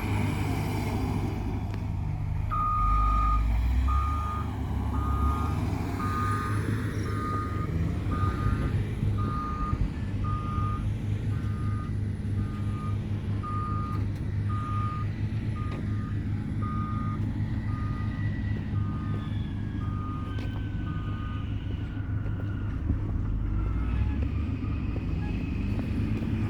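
Heavy construction vehicle reversing: its backup alarm beeps evenly, about three beeps every two seconds, over the steady running of its diesel engine. The beeping starts a few seconds in and stops several seconds before the end, while the engine keeps running.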